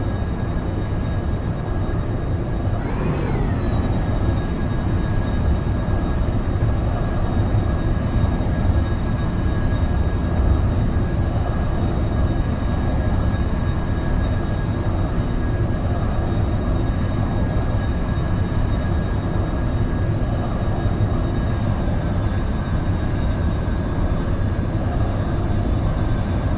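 Jet aircraft engines running: a steady heavy rumble with a constant high whine over it, and a brief falling sweep in pitch about three seconds in.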